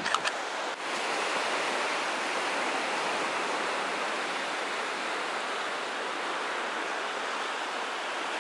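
Steady hiss of sea surf washing onto a sandy beach.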